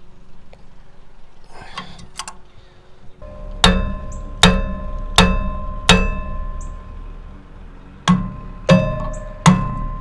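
Lead hammer blows on a seized metal part of a Ferris wheel, each strike ringing like a bell. The blows come in two runs about 0.7 s apart, the first starting about three and a half seconds in and the second a little after eight seconds. The part is stuck and is being shocked loose.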